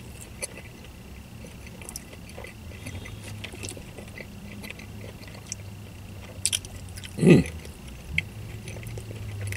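A man chewing a mouthful of chicken club sandwich, with small wet clicks from his mouth, over a steady low hum. About seven seconds in comes one short, loud hum from his throat.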